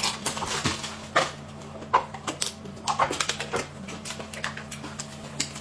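Irregular crinkling and clicking of paper and plastic packaging as an instant rice-noodle cup's lid and seasoning sachet are peeled and torn open, mixed with eating noises.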